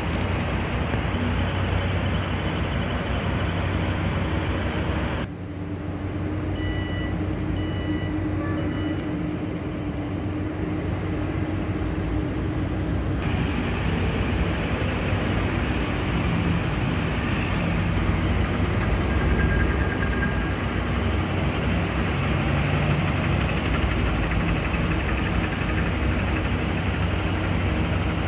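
Heavy construction machinery at a foundation site running steadily, a continuous low rumble with a strong hum. The sound changes character about five seconds in and again about thirteen seconds in. A few short high beeps come around seven to nine seconds in.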